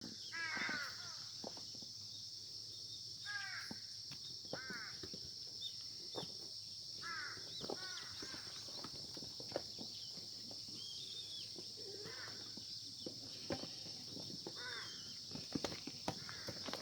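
Crows cawing in short bursts of two to four caws every few seconds over a steady, high-pitched insect chorus. Scattered knocks grow more frequent near the end.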